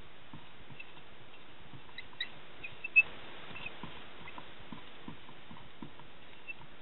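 Dry-erase marker writing on a whiteboard: faint short squeaks and light ticks of the felt tip on the board, with one sharper click about three seconds in, over a steady hiss.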